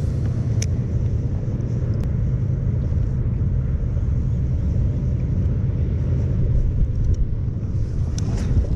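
Wind buffeting the camera's microphone: a steady, loud low rumble, with a few faint clicks.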